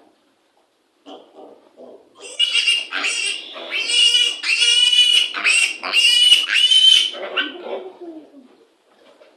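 Piglets squealing: a run of loud, shrill squeals lasting about five seconds, starting about two seconds in, with fainter sounds before and after.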